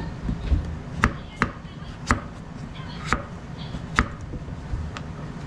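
Kitchen knife slicing kabocha squash on a plastic cutting board: about five sharp knocks of the blade hitting the board, roughly one a second.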